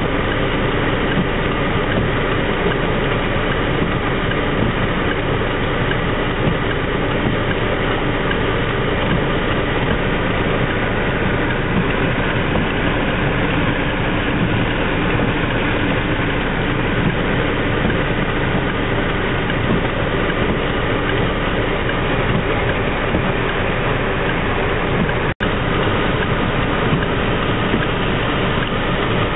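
Steady in-car noise in wet city traffic: the car's engine running, with an even wash of rain and wet-road noise. A brief dropout comes about 25 seconds in.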